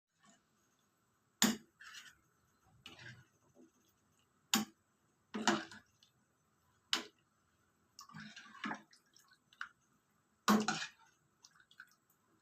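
Kitchen handling sounds: a handful of sharp knocks and clatters of utensils or containers at irregular intervals, with softer scraping and rustling between.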